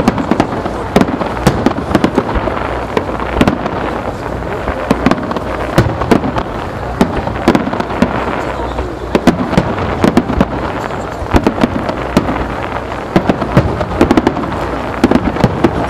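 Aerial fireworks in a rapid-fire barrage: many sharp bangs and crackles of shells bursting close after one another, several a second, over a continuous background of noise.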